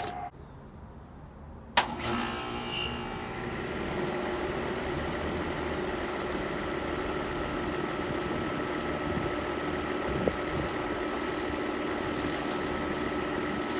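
2-ton Rheem Classic central air conditioner condenser unit coming on with a sharp click about two seconds in, then running with a steady mechanical hum from its compressor and condenser fan.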